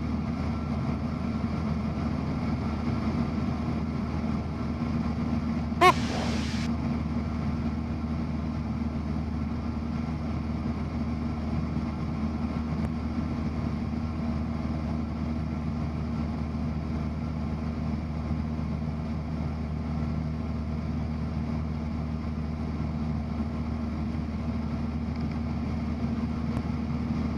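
Cessna 172's piston engine and propeller droning steadily in the cabin at constant power through a steep turn. A brief sharp sound cuts in about six seconds in.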